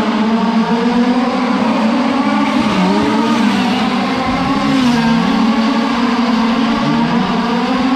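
A pack of fifth-scale gas-powered RC dirt oval cars racing, their small two-stroke engines running together at several pitches that drop and climb as the drivers lift off and get back on the throttle through the turns.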